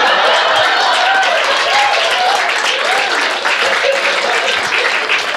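Audience applauding, a dense steady patter of many handclaps, with a few voices laughing or calling out among the claps in reaction to a punchline.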